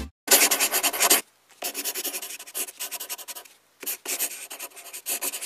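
Scribbling writing sound effect, like a pen scratching across paper. It comes as a series of strokes about a second long with short breaks between them, matching handwritten lettering being drawn on screen.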